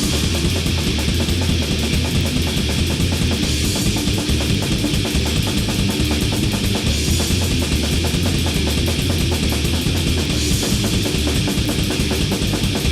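Heavy metal song from a drum kit and guitars: very fast, even drumming under a dense wall of guitar, with the high end swelling about every three and a half seconds.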